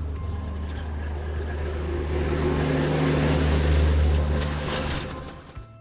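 Tractor engine running steadily while pulling a round baler through a hay field, growing louder for a couple of seconds, then fading and cutting off near the end.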